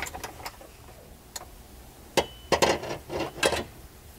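Scattered light clicks and clinks of small hardware being fitted by hand onto the rear strut tower mount of a BMW E36 M3, with a busier run of clicks in the second half and a brief ring of metal among them.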